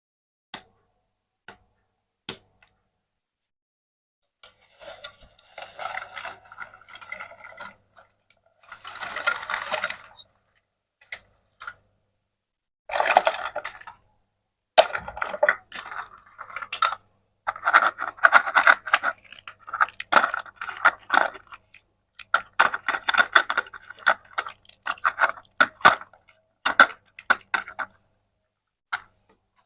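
Small objects being handled up close: scattered clicks and taps, and several stretches of scraping and rustling lasting a second or two each.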